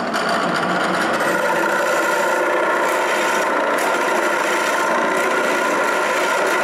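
Drill press running with a cutter bit boring into the face of a wooden band saw wheel, a steady motor hum under the grinding of wood being cut away. Wood is being removed at a heavy spot to balance the wheel.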